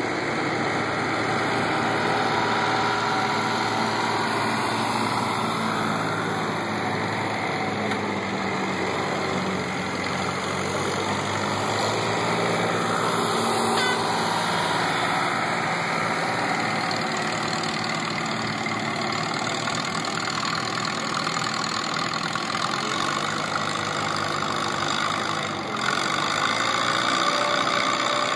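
Massey-Harris 44 tractor engine running steadily at low speed, not under load, with small shifts in pitch as the throttle changes.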